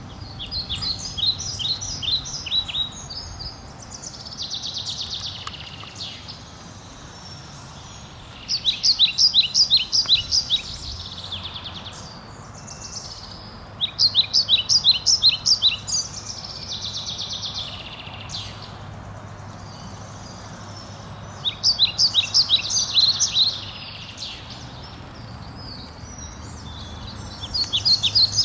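A songbird singing the same song five times: each song is a quick run of sharp, high notes ending in a buzzy trill, over a faint steady low hum.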